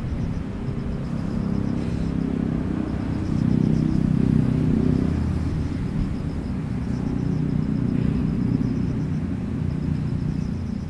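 A train rumbling past the level crossing, loudest about four seconds in and easing off afterwards.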